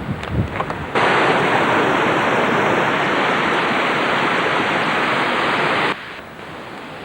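A loud, even rushing noise, like falling or rushing water, that starts abruptly about a second in and cuts off just before the end, with a low wind rumble before it and a softer hiss after.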